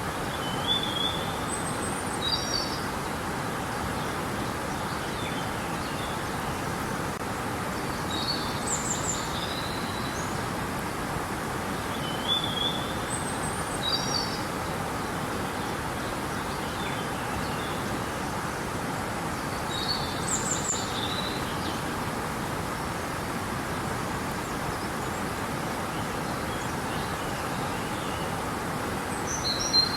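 Steady rush of river water with small birds chirping over it: short high chirps and trills come in little groups every few seconds.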